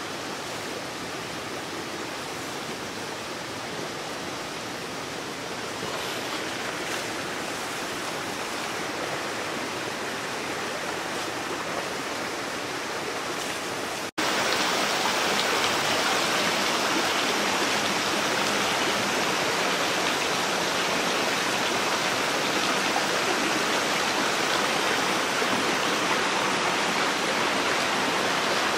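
Mountain stream running over rocks, a steady rush of water. It cuts off abruptly a little before halfway and comes straight back louder.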